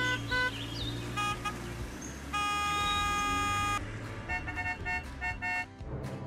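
A horn honking: a few short toots, then one long toot of about a second and a half, then a quick run of toots, over a steady low hum.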